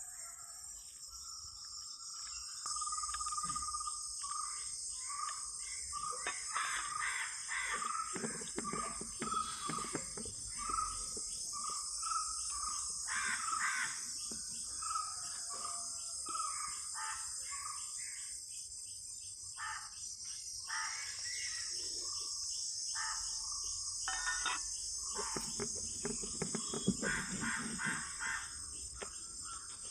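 Steady high-pitched insect chorus with birds calling and chirping over it in short repeated notes, and a few scattered knocks.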